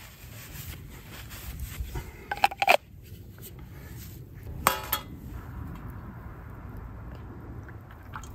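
A few knocks and a ringing metal clink as a small camp frying pan is set down, then a steady trickle of cooking oil poured from a bottle into the metal pan for deep-frying potato wedges.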